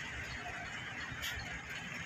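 Steady harbour ambience: a low rumble under a hiss, with one short sharp click a little over a second in.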